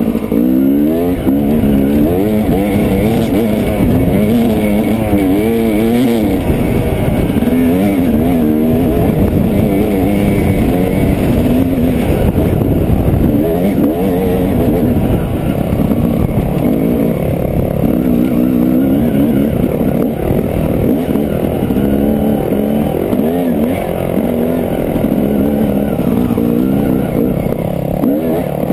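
Dirt bike engine heard close up from the rider's helmet camera. Its pitch rises and falls over and over as the throttle is opened and closed along a rough trail.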